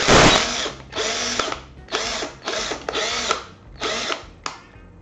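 Stilmax STL5800F cordless drill-driver's motor run in about six short trigger bursts, each spinning up and winding down, the last one very brief. The motor is being pulsed while the stiff two-speed selector is worked toward second gear.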